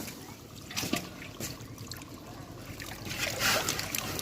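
Water trickling and splashing around a small fishing boat on a river, with a few light knocks.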